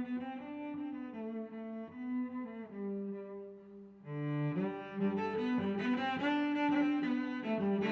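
Background music with slow, held melodic notes; it dips briefly and then comes in fuller and louder about four seconds in.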